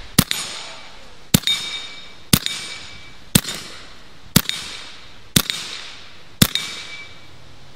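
Bintac T9 .357 PCP air pistol fired seven times at a steady pace of about one shot a second, each shot hitting a small hanging steel plate, which rings briefly after several of the hits.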